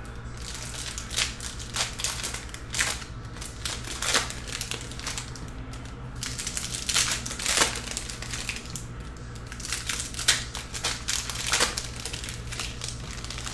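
Foil wrappers of Upper Deck Artifacts hockey card packs crinkling and tearing as the packs are handled and opened, with scattered sharp crackles and clicks. A steady low hum runs underneath.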